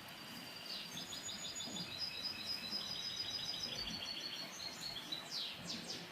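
European goldfinch singing a rapid twittering song of high, clipped notes, starting about a second in and ending with a few quick downward-sweeping notes near the end.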